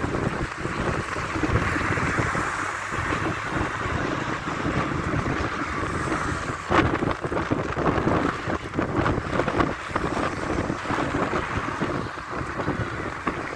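Wind buffeting the phone's microphone over the steady noise of city street traffic, with cars driving past close by. A single short knock about halfway through.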